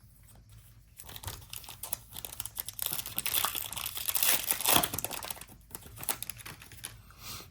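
Foil trading-card pack wrapper being torn open and crinkled by hand, a crackly rustle that grows loudest in the middle.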